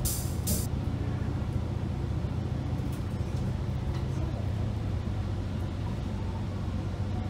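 KiHa 40 diesel railcar heard from inside the carriage, its engine running with a steady low drone as the train rolls slowly. Two short hissing noises come in the first half-second, and the drone drops slightly about four seconds in.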